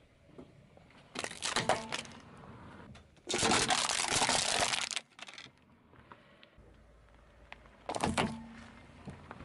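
A car tyre crushing small objects one after another: a short crack of breaking plastic about a second in, then a longer, louder crushing of an aluminium drink can, and another short plastic crack near the end as a plastic box is squashed.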